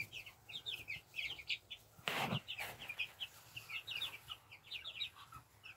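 Young Polish and Faverolles chickens peeping, a constant run of short high cheeps several times a second, with a brief rustle about two seconds in.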